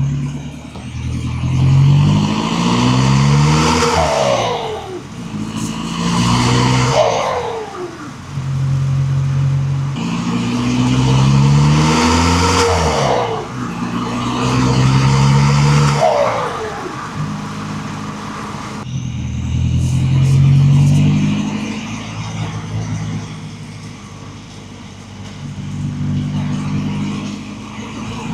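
1.9 TDI four-cylinder turbodiesel engine revving up and dropping back about six times. Four of the drops, in the first two thirds, carry a high whistle that falls in pitch.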